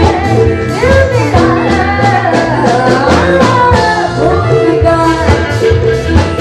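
A young female singer singing live into a microphone over amplified instrumental backing with a steady beat and bass line.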